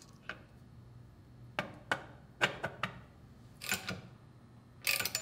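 Small metal clicks and taps of an Allen wrench and screws against the controller's cast pivot plate as its screws are set and turned in. About seven separate sharp clicks, with a short rattling cluster near the end.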